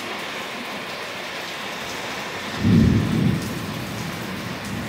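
Steady rain falling, with a short low rumble of thunder about two and a half seconds in that is the loudest part.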